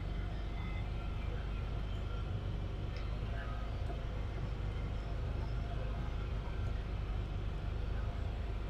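A vehicle's engine running at a steady speed, a low even hum.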